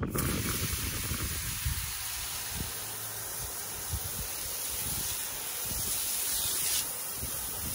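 Garden hose pistol-grip spray nozzle spraying a steady jet of water onto a concrete patio, a continuous hiss of spray striking the surface.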